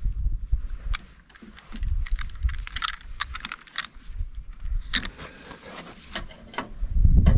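Scattered small clicks, ticks and light metallic rattles of hand tools and wires being handled while wiring a breaker panel, over an uneven low rumble.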